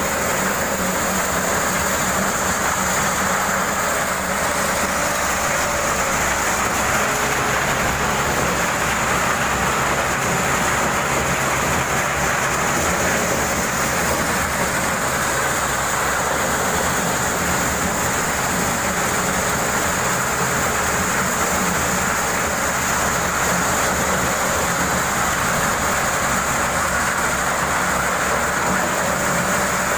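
Motorised corn sheller running steadily under load, its engine and threshing drum making a loud, even mechanical noise as unhusked corn cobs are fed through.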